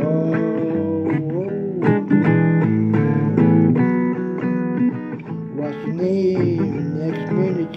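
Blues guitar playing, with notes bent up and down.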